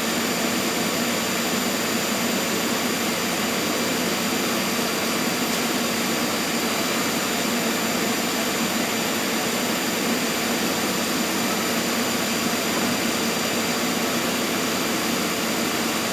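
Goodway GL25 CNC lathe running under power: a steady, unchanging whir and hiss with a constant hum and thin high whines.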